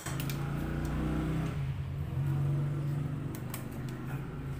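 Steady low engine hum, like a motor vehicle running, with a few light clicks.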